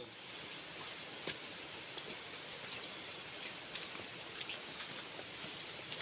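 Insect chorus in tropical forest: a steady, unbroken high-pitched shrill drone.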